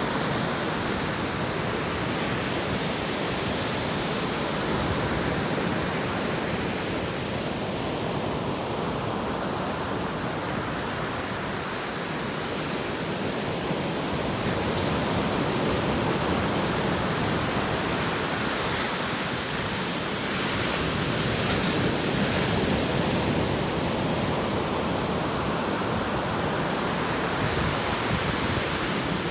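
Atlantic Ocean surf washing in, a continuous rush of water that slowly swells and eases.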